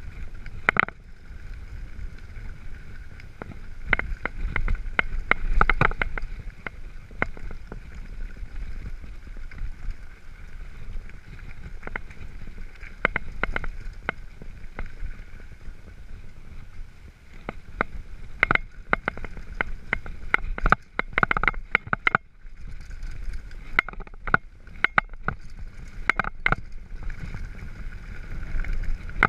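Mountain bike rolling down a rough gravel and dirt track: a steady low rumble of tyres and wind, with irregular rattling clicks and knocks as the bike jolts over stones, coming in flurries a few seconds in and again from past the middle onward.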